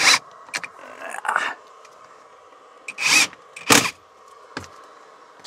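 Cordless drill/driver running in several short bursts, driving screws to fasten a metal L bracket that holds a small vent fan in place. The strongest bursts come right at the start and twice around three to four seconds in.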